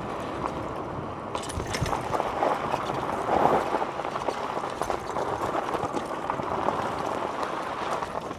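Riding noise of an electric bike: a steady rush of tyres rolling on the path, with scattered small knocks and rattles.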